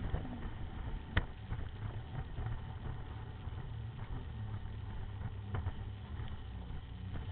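Sea-Doo RXP-X 255 personal watercraft running at speed over choppy water, recorded from a camera mounted on the craft: a steady engine drone under a wash of water and wind noise. A sharp knock sounds about a second in and another a little past five seconds.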